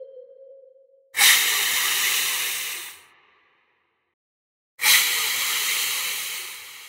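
A hissing sound effect played twice. Each hiss starts suddenly: the first, about a second in, lasts about two seconds; the second, past the middle, fades out slowly.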